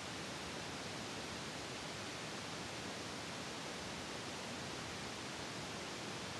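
A steady, even hiss with nothing else heard: no voices, commands or rifle movements.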